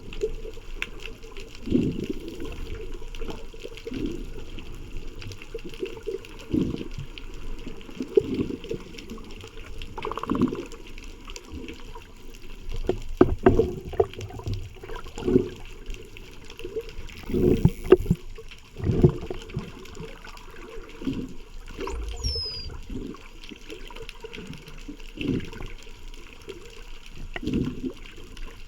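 Underwater scuba breathing: a diver's regulator releases exhaled bubbles in a gurgle every two to three seconds, over a steady hiss. A brief faint falling whistle is heard about two-thirds of the way through.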